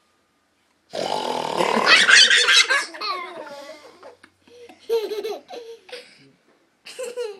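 A young child laughing loudly, a long belly laugh about a second in, then two shorter bursts of giggling a few seconds later.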